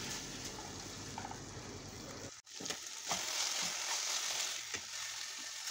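Boneless chicken pieces sizzling in oil in a nonstick pan, stirred with a plastic slotted spatula that adds short scrapes and taps. The sizzle breaks off for a moment about two and a half seconds in, then carries on.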